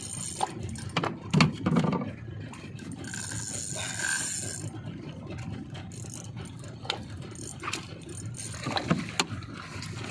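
Fishing reel being worked during a fight with a mackerel: mechanical rattling and scraping of the reel's gears, with irregular knocks and clicks.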